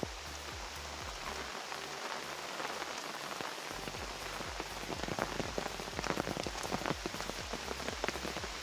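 Heavy rain steadily hitting an umbrella held close overhead, with many sharp drop ticks that come thicker in the second half.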